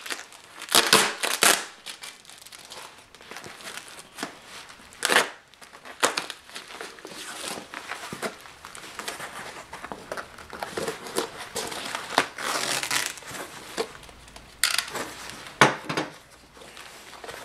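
Bubble wrap and white padding wrap crinkling and rustling as a parcel is unwrapped by hand, in irregular bursts, loudest about a second in and again about five seconds in.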